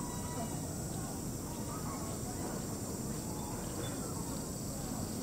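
A steady high insect drone over a low outdoor rumble.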